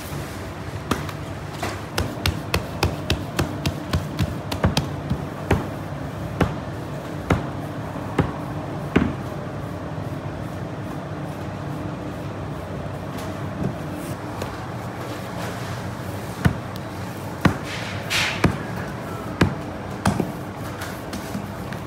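Hands slapping and pressing a round of patyr dough flat on a hard disc: a quick run of sharp pats, about two to three a second, then scattered single pats.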